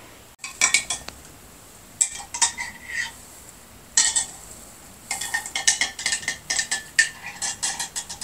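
Spoon stirring in a glass, clinking against it in several short bursts, the longest near the end, each with a brief ringing.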